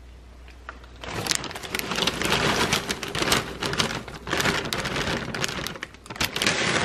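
Dry Cinnamon Toast Crunch cereal squares poured from a plastic bag into a measuring cup: a dense patter of small pieces clattering into the cup along with bag crinkle. It starts about a second in and carries on, in uneven surges.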